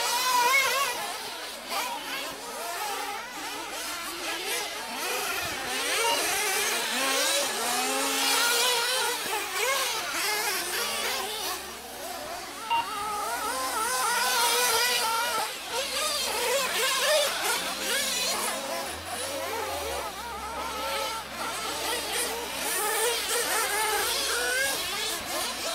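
Several 1/8-scale nitro off-road RC cars racing, their small glow-fuel two-stroke engines whining high and rising and falling in pitch over and over as they rev up and back off.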